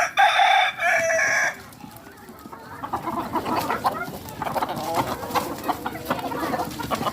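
A rooster crows once, a loud call about a second and a half long, followed by hens clucking.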